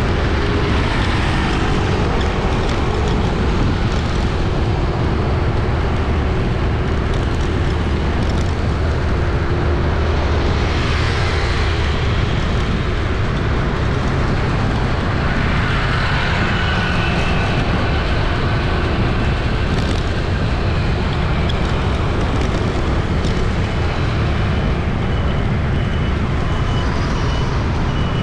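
Busy city street traffic: a steady stream of engines humming and tyres hissing, with vehicles swelling past now and then. A faint high-pitched beeping repeats near the end.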